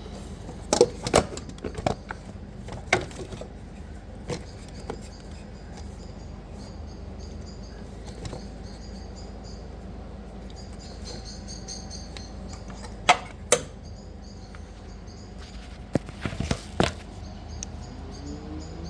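Scattered sharp metallic clicks and clinks of bolts and hand tools being handled as fasteners are threaded in by hand to hand tight, over a steady low hum.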